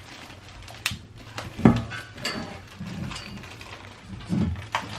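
Ratcheting clicks and scattered knocks of a screw being driven in by hand as a metal hook is fastened to a desk, the loudest knock about a second and a half in.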